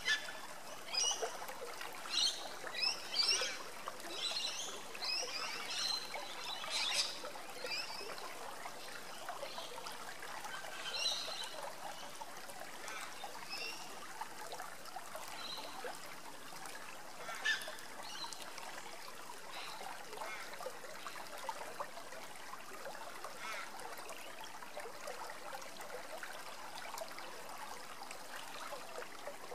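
Shallow river rippling over rocks: a steady trickling. Birds make short, high chirps over it, many in the first eight seconds, then only a few scattered calls.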